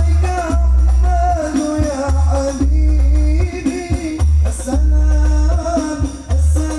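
Music with a sung melody over a heavy, deep bass beat, played loud through a large outdoor PA, a hung line array with a bank of twenty subwoofers, during a sound check.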